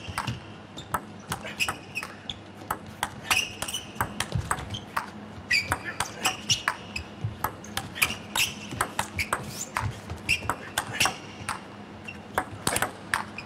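Table tennis rally: the celluloid-free plastic ball clicking sharply off the bats and table in quick succession, with rubber-soled shoes squeaking on the court floor several times.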